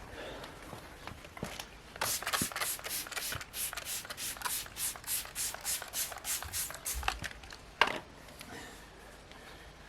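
Clay cloth rubbed back and forth over car paintwork wet with quick detailer: quick, even rubbing strokes about three a second for several seconds, followed by a single short sharper burst near the end.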